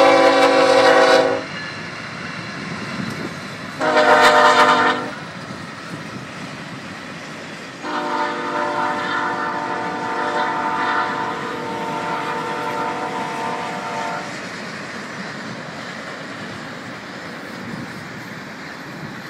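Locomotive air horn sounding three chord blasts: one ending about a second in, a short one about four seconds in, and a long one lasting some six seconds from about eight seconds in. Under the blasts and after them runs the steady noise of a long passing train.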